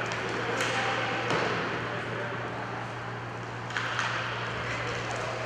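Inline hockey play in an indoor rink: a steady din with a low hum, and a few sharp knocks of sticks and puck, two of them close together near the end.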